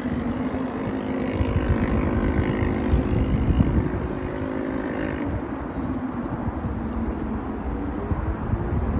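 Wind buffeting the microphone, with a steady engine drone from a vehicle that stops about five seconds in.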